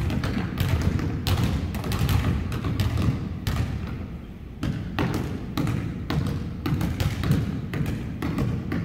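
A basketball being dribbled on a hardwood gym floor: uneven bouncing thumps that echo around the gym, with a short lull about four seconds in.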